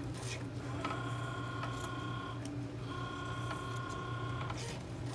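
Cricut cutting machine at work: its motors whine in two stretches of about a second and a half each over a steady low hum, with a few sharp snips of scissors cutting fabric.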